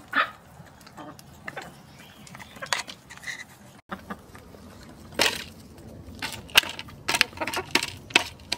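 Hens' beaks pecking pumpkin pie out of an aluminium foil pie tin: a quick, uneven run of sharp clicks and taps on the foil, thickening into rapid pecking in the second half after a few scattered taps.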